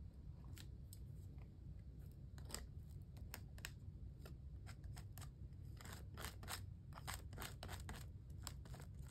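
Palette knife spreading and scraping stencil butter across a stencil on a paper journal page: faint, short scraping strokes at an uneven pace, about one or two a second.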